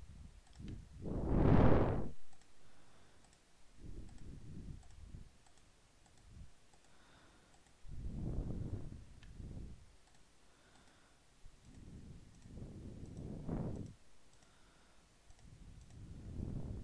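Computer mouse clicking now and then as polygonal lasso points are placed around a selection. Several louder, muffled low puffs of noise come between the clicks, the strongest about a second and a half in.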